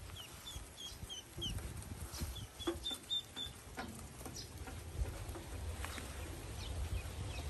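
Newly hatched Pekin ducklings peeping: many short, high peeps in scattered runs over a low background rumble.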